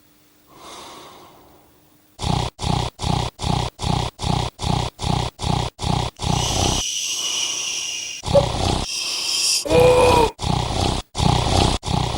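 A person snoring, pushed to an extreme: one soft snore, then a fast run of loud, choppy snorts about three a second, broken by longer roar-like stretches.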